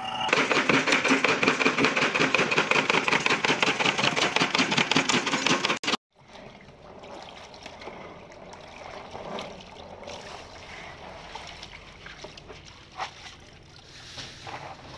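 A pneumatic nail gun fires a fast, steady run of sharp shots into wooden pallet boards for about six seconds, then stops abruptly. After that, water sloshes and splashes quietly in a plastic tub as hands scrub in it.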